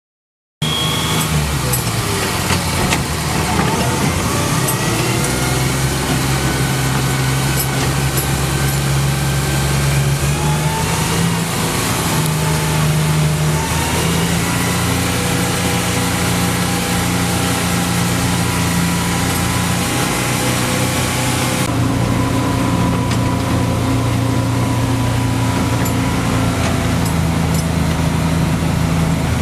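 A 1950s vintage truck's engine running as the truck drives along, with steady road noise. The engine pitch shifts a few times as it changes speed.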